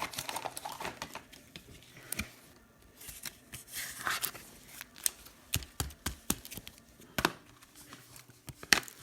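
Hands handling trading cards and their packaging: scattered crinkling, rustling and short clicks.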